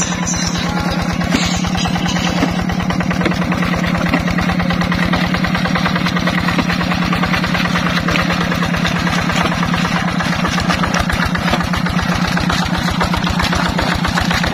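Single-cylinder diesel engine of a two-wheel hand tractor running steadily with a fast, even chug as the machine pushes its cage wheels through a flooded rice paddy.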